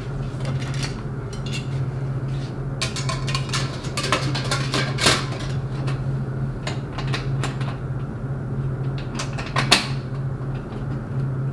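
Stainless steel tank lid and sanitary clamp clinking and knocking against the tank rim as the lid is seated and the clamp fitted: a run of metal clinks a few seconds in and a sharper one near the end. A steady low hum runs underneath.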